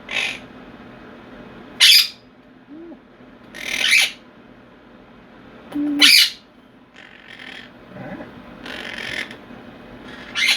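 Quaker parrots (monk parakeets) screeching: loud, harsh squawks repeated about every two seconds, close to the microphone.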